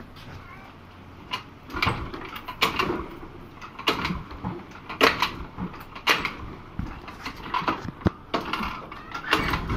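A series of irregular knocks and clatters, roughly one a second, from a Hero Pleasure scooter being worked to start after oil has been put into its engine for low compression. Its engine catches right at the end.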